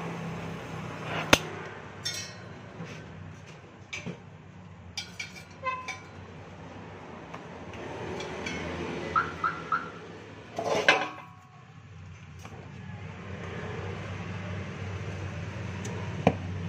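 Workshop noises: a few sharp metal clinks and knocks and three quick high beeps about nine seconds in, over a steady low hum.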